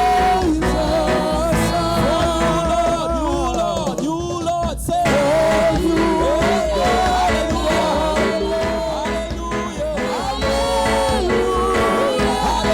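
Church worship music: a sung melody over instrumental backing with a heavy, steady bass.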